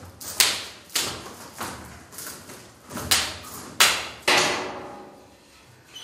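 Hard-soled footsteps, several people walking, about eight heavy steps at an uneven walking pace, each ringing on in an echoing bare room.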